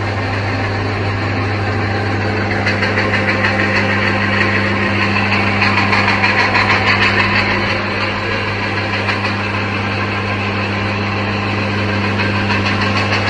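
Electric mixian (rice noodle) extruding machine running: a steady, strong motor hum with a fast, dense rattle over it, a little louder in the middle.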